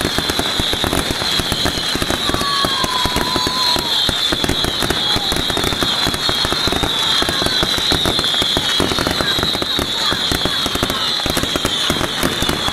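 Strings of firecrackers going off in a dense, continuous crackle of rapid pops, with a steady high hiss above them.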